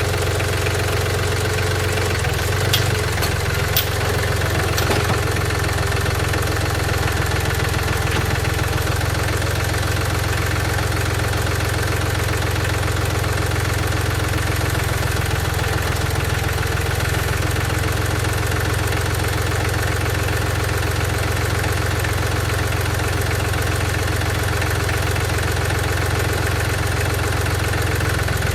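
An engine running steadily at idle, with two sharp clicks about three and four seconds in.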